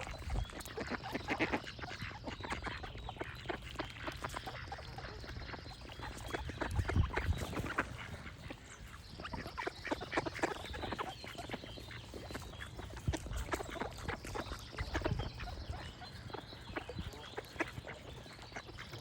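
Duck quacking over and over, with birds singing in the background.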